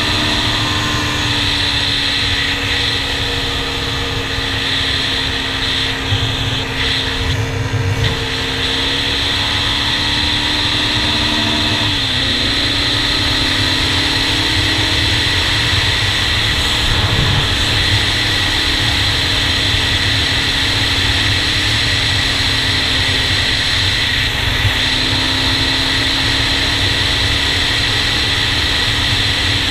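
Honda TRX400EX quad's single-cylinder four-stroke engine running at a steady cruising speed, heard from a helmet-mounted camera with wind rushing over the microphone. The engine note dips briefly about twelve seconds in and then picks back up.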